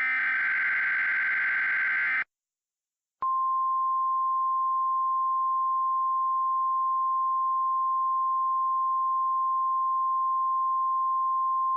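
An Emergency Alert System SAME header data burst, a dense digital chirp about two seconds long, ends abruptly. After about a second of silence, the NOAA Weather Radio 1050 Hz warning alarm tone starts and holds as one steady, unwavering pitch: the attention signal that comes before an alert message is read.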